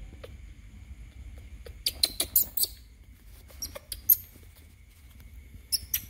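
Short, high-pitched squeaks from a young animal: a cluster about two seconds in, a few more around four seconds, and another near the end.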